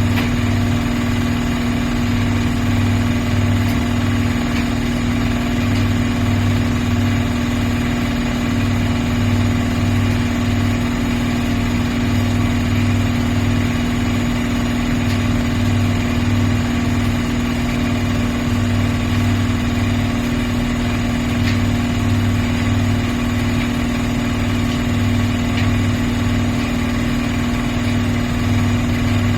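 Miele PW 6080 commercial washing machine running at a steady speed: a constant motor hum with a lower throb that swells and fades about every second and a half.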